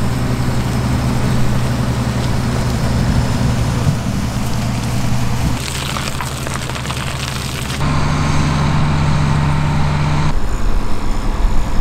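Vehicle engines running steadily at idle, heard in several short clips cut together, with a stretch of crackling noise in the middle.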